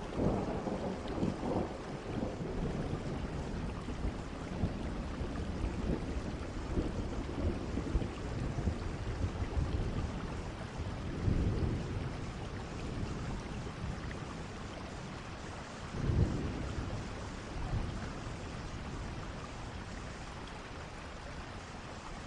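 Steady heavy rain with low rolls of thunder swelling up now and then, most strongly near the start, about halfway through and about two-thirds through.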